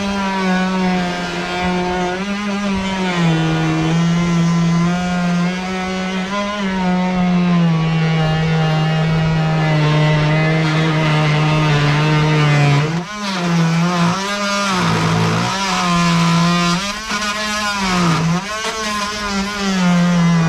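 Handheld electric power tool running as it cuts, its motor pitch sagging under load and recovering several times, dipping deepest a little past the middle.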